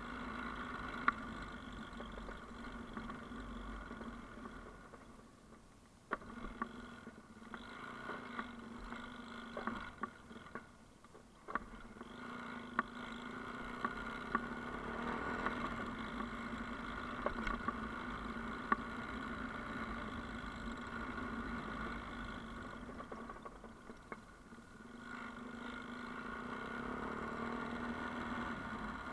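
Yamaha Ténéré motorcycle engine running steadily on a gravel mountain track. Its sound falls away and returns three times, with a few sharp knocks from the bike over rough ground.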